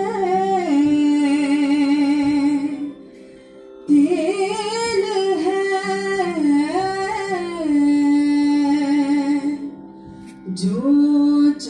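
Live singing on stage: one voice sings a slow, ornamented melody of gliding phrases and long held notes with vibrato over a steady low drone. The phrases break off twice for about a second each.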